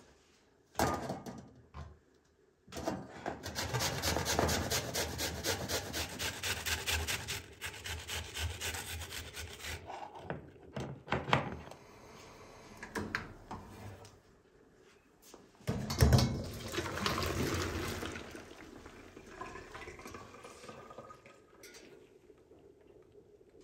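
Kitchen work at a tiled counter: several seconds of fast, even rubbing strokes, a few knocks, then a sudden thump with a short rush of noise about sixteen seconds in.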